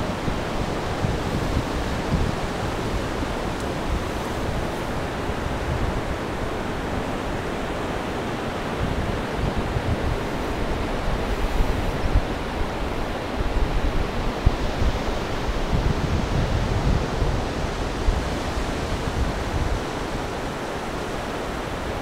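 Sea surf washing continuously up a flat sandy beach, with wind buffeting the microphone as an uneven low rumble that gusts harder a little past the middle.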